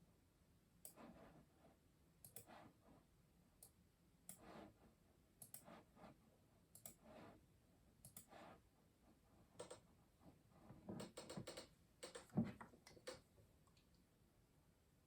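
Faint keystrokes on a custom mechanical keyboard, sparse and uneven at about one a second, then a quicker run of strokes about two-thirds of the way through, with the loudest stroke in that run.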